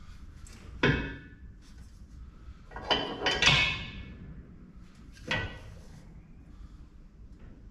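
Metal being struck: about four ringing metallic clanks, the loudest a close pair around three seconds in.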